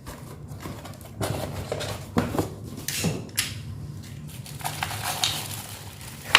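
Irregular rustling, clicking and clattering as the drill and its accessories are handled and unpacked, over a steady low hum.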